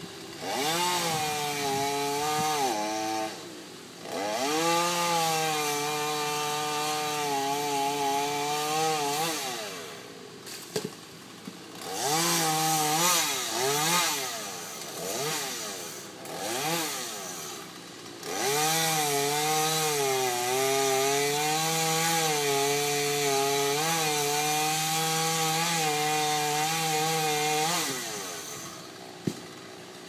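Chainsaw cutting limbs from a cottonwood tree in about six bursts of a few seconds each, the longest near the end. Its pitch sags and recovers as the chain bites into the wood, and the engine drops back between cuts.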